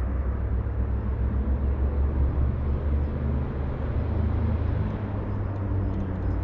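Wind buffeting the microphone: a steady low rumble under a rushing hiss.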